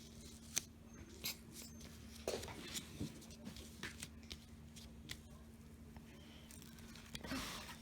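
Faint scattered taps and rustles of construction paper being handled and pressed on with glue, with a brief rustle near the end, over a steady faint low hum.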